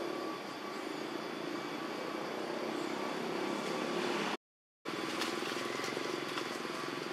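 Steady outdoor background noise with a few faint, high, steady tones running through it, broken by about half a second of silence a little past the middle.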